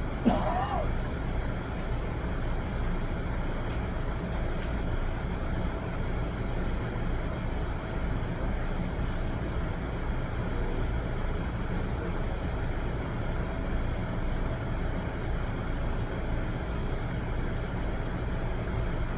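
Steady low rumbling background noise. Just after the start, a single brief, loud sound with a quick up-and-down pitch breaks through it.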